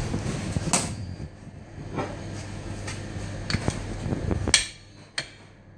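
A heavy butcher's cleaver chopping into a beef rib section on a wooden block, giving a series of sharp chops. The loudest chop comes about four and a half seconds in.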